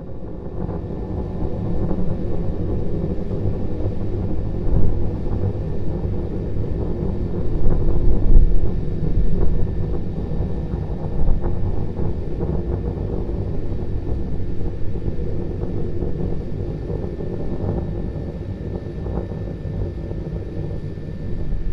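Low, steady rumble of a Starship prototype's Raptor rocket engines firing on ascent, running on two engines, swelling and fading in loudness.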